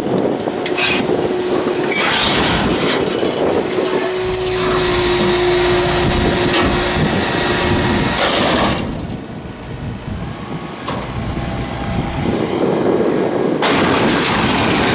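Tractor engine and round baler running. Partway in, a loud hiss with a high whistle lasts about four seconds, then the noise drops for several seconds before it swells again.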